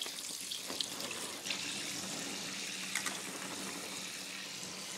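Kitchen tap running steadily as blueberries are rinsed under it, with a few light clicks.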